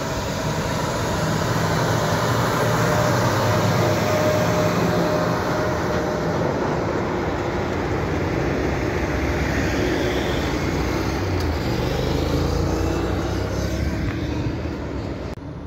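Heavy diesel prime mover towing a loaded multi-axle low-loader trailer driving past, engine and tyre noise building as it approaches and staying loud while it passes, then dropping away near the end.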